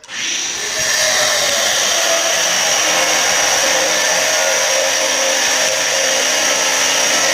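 Loud, steady whirring noise like a small motor or blower running, building up over about the first second and then holding even.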